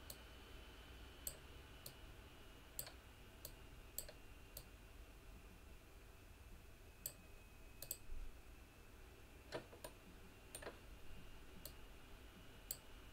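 Computer mouse buttons clicking quietly, about fifteen scattered, irregularly spaced clicks.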